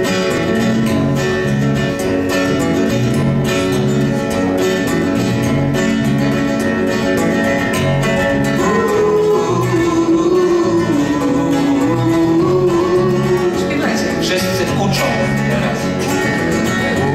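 Two nylon-string acoustic guitars and an electric bass guitar playing an instrumental introduction with a steady, even pulse. About nine seconds in, a sustained melody line comes in over them.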